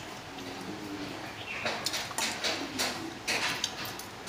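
Close-up eating sounds: chewing and lip smacking, with short sharp clicks scattered through the second half.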